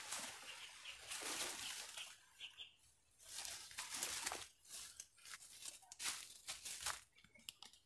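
Faint rustling and crinkling of banana leaves in short, irregular bursts, as a long cutting pole is worked among the leaves of a banana plant.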